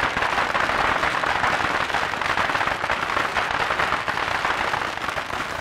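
A long string of firecrackers crackling in rapid, continuous bangs, with a crowd clapping along.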